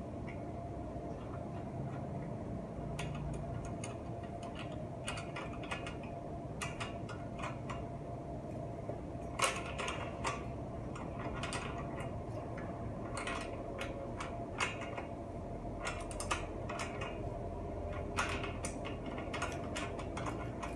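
Irregular metallic clicks and ticks of hand tools working on a bicycle's crank and bottom bracket, over a steady faint hum.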